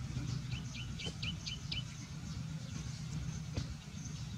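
A bird giving a quick run of about six short, falling chirps in the first two seconds, over a steady low rumble, with a couple of faint knocks.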